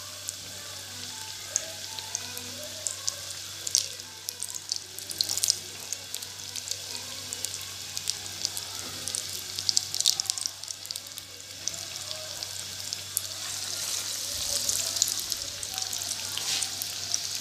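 Breadcrumb-coated potato cutlets deep-frying in hot oil: a steady sizzle scattered with crackles and pops, growing denser and louder over the last few seconds.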